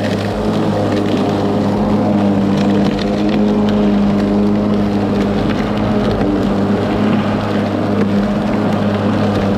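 Ryobi 40V brushless electric lawn mower running steadily, its motor and spinning blade giving a constant hum with scattered short ticks.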